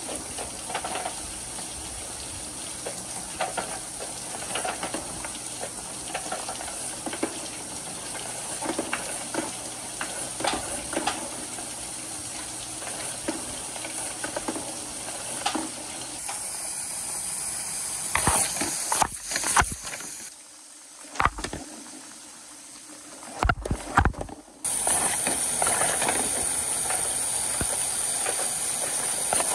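Water rushing down plastic rain gutters and a slide in a steady hiss, with wooden balls knocking and clattering as they roll along the channels. The sound drops away briefly about two-thirds in, then returns as a louder, steady gush of water pouring from a chute.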